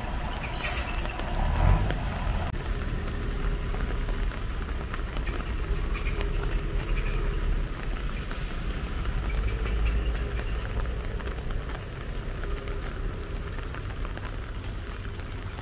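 Steady low outdoor rumble of urban ambience, with a sharp click about half a second in and a heavier low thump just under two seconds in.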